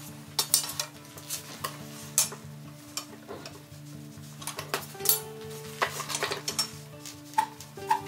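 Hot flat iron bar clamped in a bench vise being levered into a bend with a steel bending tool: irregular metal clinks and knocks as the tool grips and shifts on the bar, a couple of them ringing briefly. Background music plays under it.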